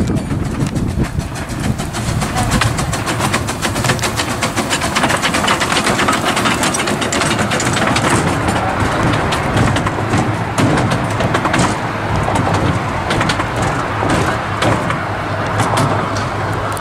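Miniature steam train Pilgrim running past close by with its carriages, a steady rumble full of quick clicks and rattles from the wheels on the narrow-gauge track.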